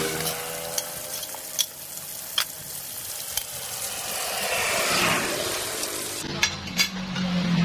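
Whole fish frying in shallow oil in an aluminium wok: steady sizzling, with a few sharp clicks of a metal spatula against the pan in the first seconds. Near the end the sizzling gives way to a low hum and a run of light clinks.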